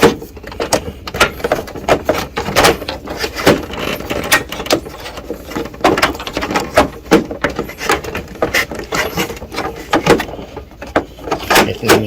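Irregular plastic clicks, knocks and clacks as the broken ADF hinge of a Canon imageCLASS D1350 printer is worked loose and pulled out, with a scattering of sharper snaps throughout.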